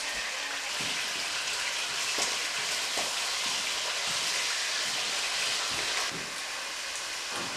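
Meat sizzling steadily in a pan over an open wood fire, with a few soft pops.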